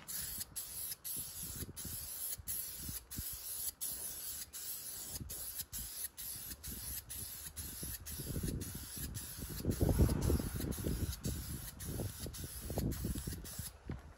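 Aerosol spray-paint can spraying in a steady hiss that stops shortly before the end. A low rumble underneath swells in the second half.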